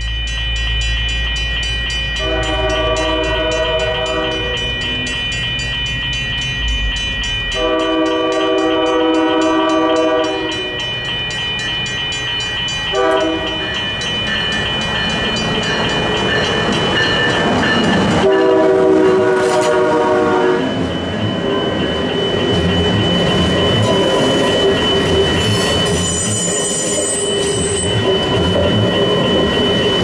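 Amtrak train's multi-tone air horn sounding long, long, short, long: the grade-crossing signal. The train then passes close, with rising rumble and rail noise and high wheel squeal near the end.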